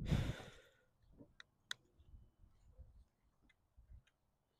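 A short burst of rustling noise, then a few faint, sharp, scattered clicks.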